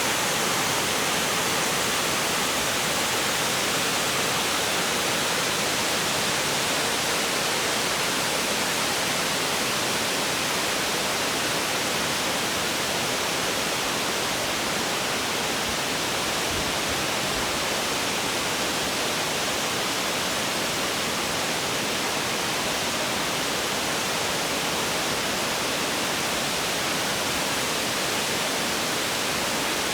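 Shirahige Falls, spring water gushing from a cliff face, making a steady, even rush of falling water.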